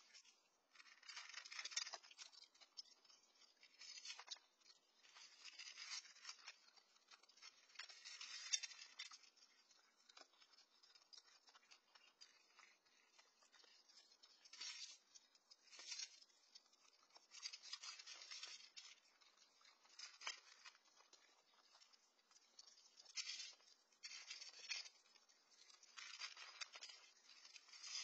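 Raccoons eating dry cat kibble from a steel bowl: bursts of crunching and rattling every second or two, faint through a Nest security camera's microphone.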